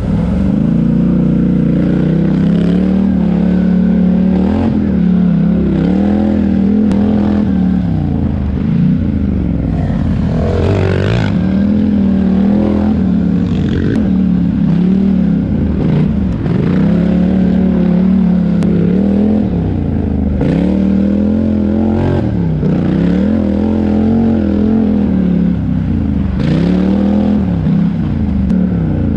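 Four-wheel-drive race ATV engine running hard, its note dropping and climbing back again every few seconds as the throttle is let off and reopened. A few sharp knocks come through here and there.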